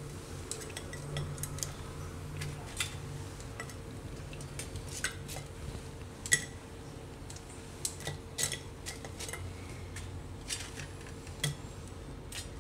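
Light clicks and taps of fried sabudana vadas and fingers against plates as the vadas are lifted off a steel rack and set down one by one on a serving plate. The clicks come at irregular intervals, and the loudest comes about six seconds in.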